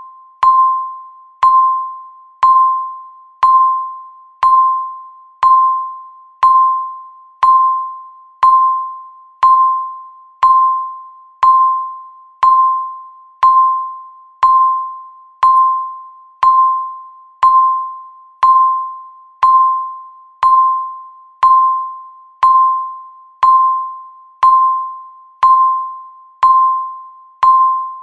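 Countdown timer beep sounding once a second: a single clear, bell-like ding that starts sharply and fades away before the next one, marking each second.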